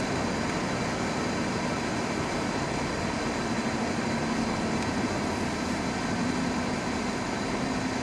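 Steady road and engine noise of a car driving along at an even speed, with a faint low engine hum under the tyre and wind noise, heard from inside the car.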